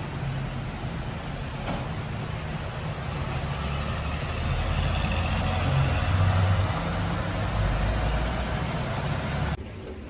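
Steady low rumble of road traffic with a heavy vehicle among it, swelling about halfway through and cutting off suddenly near the end.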